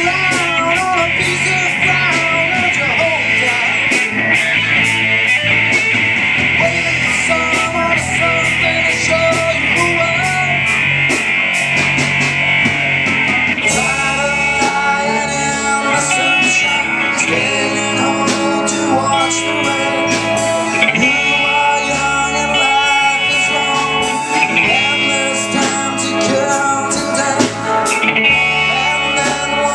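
Live rock band playing: electric guitars, drums and keyboard, amplified. A guitar-heavy instrumental passage gives way about halfway through to a male lead singer singing over the band.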